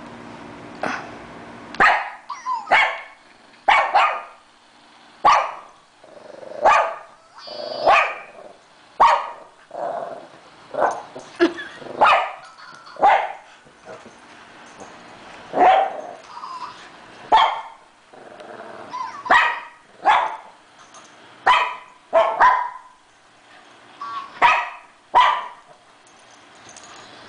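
Shih Tzu barking over and over at her toy hamster: about twenty short, sharp barks, roughly one a second, with brief pauses.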